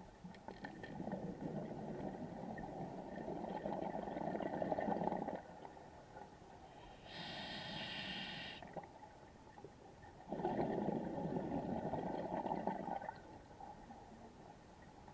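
Scuba diver breathing underwater: two long, low, rough exhalations with bubbles, with a short, higher hiss of an inhaled breath through the regulator about seven seconds in.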